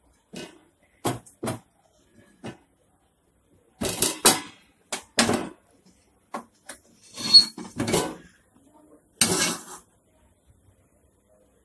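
Iron tawa (flat chapathi griddle) being set down and shifted on a gas stove's metal pan support, making a series of sharp knocks and short clattering scrapes with pauses between them. The longest clatters come about four, seven and nine seconds in.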